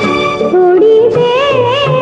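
Old Bollywood film song music: a wavering melody line with vibrato over orchestral accompaniment.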